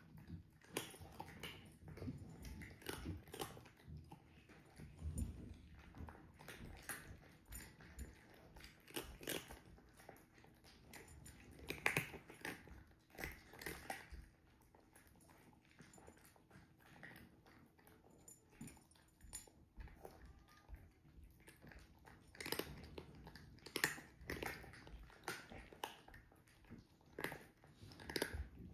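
Cats eating from ceramic bowls: faint, irregular chewing and crunching with small clicks, in clusters and pauses.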